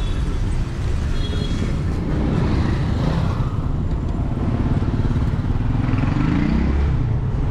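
Road traffic close around a bicycle: car and motorcycle engines running in a low rumble, with an engine note rising and falling as vehicles pull away, once a couple of seconds in and again near the end.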